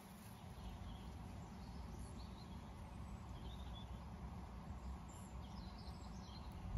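Quiet outdoor ambience: a steady low background rumble with a few faint bird chirps.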